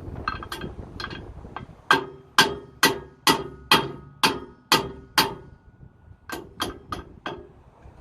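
A hammer striking metal: eight hard ringing blows about two a second, a short pause, then four lighter blows.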